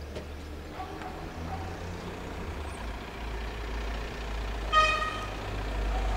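A single short vehicle horn toot about five seconds in, over a low traffic rumble that grows louder toward the end.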